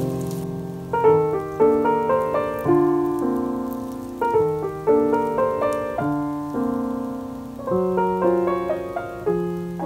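Background piano music: a melody over chords, each note struck and fading.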